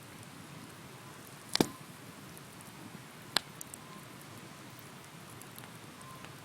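Bonfire burning with a steady soft crackle and hiss, and two sharp pops of burning wood, one about a second and a half in and another about two seconds later.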